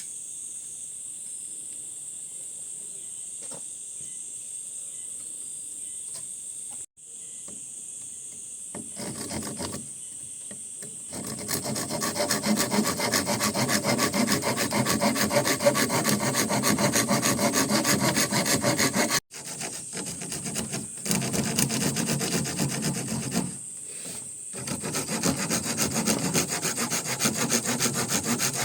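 Wood being sawn: a loud, rapid rasping of fast saw strokes that starts about a third of the way in and runs on with two short breaks.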